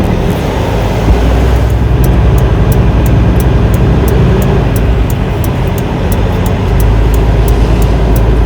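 Semi truck's diesel engine running steadily, with a fast, even ticking of sharp high clicks, about four a second, from about two seconds in.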